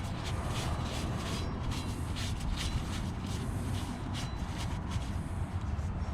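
Irregular scraping and rubbing strokes, a few a second, from hand work on a rusty brake hub, over a steady low rumble.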